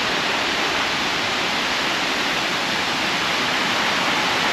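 Lechfall waterfall on the Lech river: a steady, even rush of falling water.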